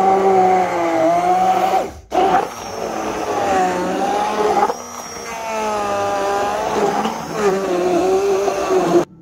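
Immersion (stick) blender running in a jug of milk and banana pieces, blending a banana milkshake. Its motor whine wavers in pitch as it works, cuts out for a moment about two seconds in, then restarts and stops abruptly near the end.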